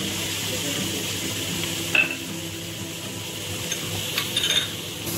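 Chopped onion sizzling steadily as it fries in hot butter and oil in a non-stick frying pan. A sharp click sounds about two seconds in, and a few lighter clicks near the end.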